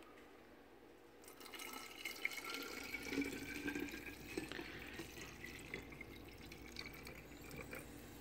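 Liquid poured from a bottle over a pork roast in a plastic liner bag: a faint, steady pouring and trickling that starts about a second in, with a slightly rising ring from the bottle.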